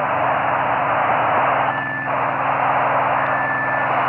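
FM receiver hiss from the AO-92 (Fox-1D) amateur satellite's 145 MHz downlink while nobody is transmitting through it, cut off sharply above the voice band. Under it runs a steady low buzz of the satellite's data-under-voice telemetry. Two short steady whistles come about a second and a half apart.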